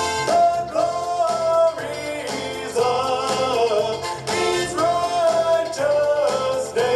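A recorded Christmas song playing: a singer holding long notes over an instrumental backing.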